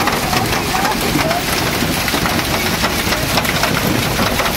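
Hail and heavy rain pelting down onto pavement and cars: a dense, steady hiss packed with small ticks of stones striking.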